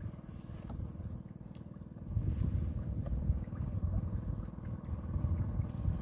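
Outrigger fishing boat's small engine humming steadily, with a low rumble of wind or water that grows louder about two seconds in.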